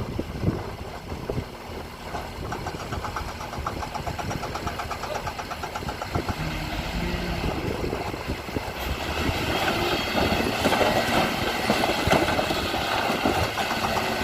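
Diesel engine of heavy earthmoving machinery running steadily with a fast rhythmic pulse, growing louder about nine seconds in.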